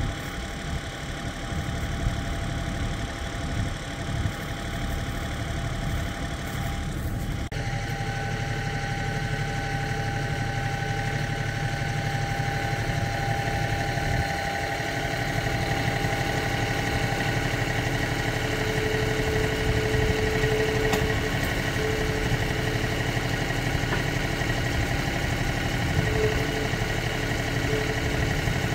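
Compact tractor engine running at idle as the tractor reverses up to a 3-point grader blade to hook it with a quick hitch. The sound changes abruptly about seven seconds in, after which a steady high whine sits over the engine.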